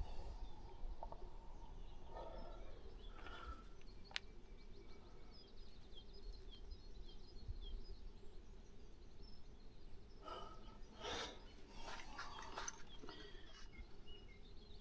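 Faint steady background noise with small birds chirping in short high notes, and a few brief soft scrapes or rustles.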